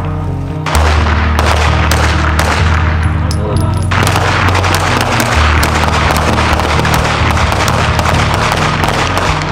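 Repeated handgun shots from several shooters on a range, over music with a deep, held bass line that comes in strongly about a second in.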